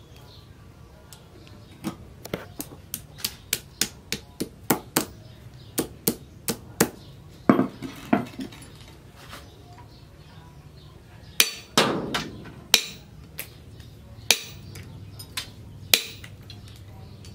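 Metal striking a steel anvil post: first a run of light taps, about three a second and growing louder, then heavier strikes with a short ring, a second or two apart, as a machete forged from a tractor disc-plough blade chops through plastic-coated wire laid on the post.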